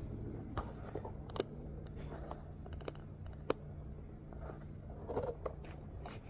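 Scattered light clicks and knocks as washing machine drum parts are handled during disassembly, with a steady low hum underneath; the sharpest click comes about three and a half seconds in.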